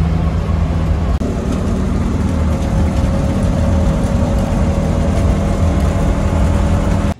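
Engine and road noise heard from inside a small passenger vehicle's cabin while it drives along: a steady low engine drone with rattling noise over it.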